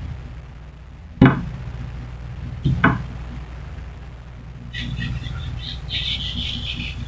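Two sharp knocks about a second and a half apart, then small birds chirping rapidly from about two-thirds of the way through, over a low steady hum.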